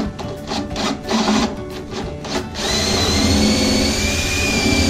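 Acoustic guitar music, then about two and a half seconds in a handheld drill starts up and runs steadily with a high motor whine, boring a large hole into a wooden slab table top; the drilling cuts off right at the end.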